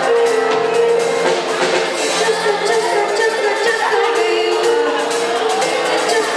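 Live band playing a song with singing, drums and percussion, the singing in long held, wavering notes.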